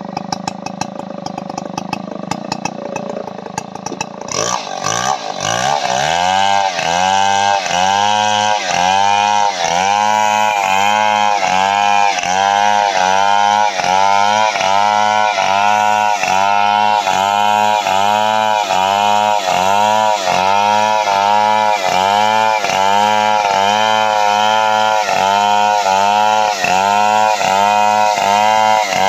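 Stihl 070 two-stroke chainsaw running hard while ripping a coconut palm log lengthwise. After about five seconds the engine pitch begins to rise and fall in a steady pulse, about one and a half times a second, as the cut goes on.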